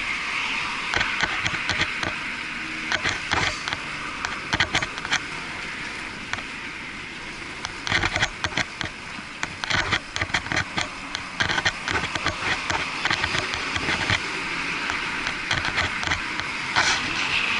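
Muffled riding noise from a bicycle-mounted action camera sealed in a waterproof housing: a steady hiss with many clicks and knocks as the bike rolls over sidewalk paving, thickest about eight seconds in and again near the end.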